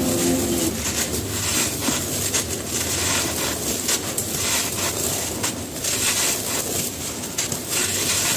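Gritty, dusty cement being crumbled, with a steady crunching rustle broken by many sharp, irregular crisp cracks.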